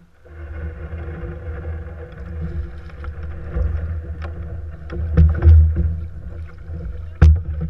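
Canoe hull rumbling and knocking as a paddler climbs aboard and the boat pushes off from the gravel bank. Several sharp knocks against the hull, the loudest near the end.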